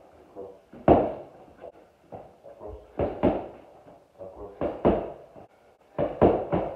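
Gloved strikes smacking into hand-held strike pads: one hit about a second in, quick pairs of hits about three and five seconds in, and a fast run of three near the end.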